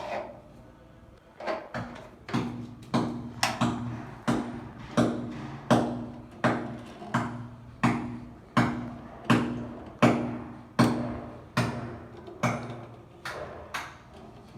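Steady hammering: a regular series of sharp strikes, about one every 0.7 s, each with a short ring. It starts with a few scattered blows and settles into the even rhythm about two seconds in.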